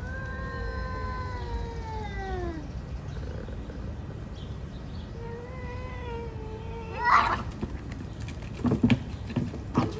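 Two street cats caterwauling at each other: a long yowl that slides down in pitch, then a second, steadier yowl. About seven seconds in comes a sudden loud harsh hiss, and near the end a few loud scuffling bursts as the cats lunge at each other.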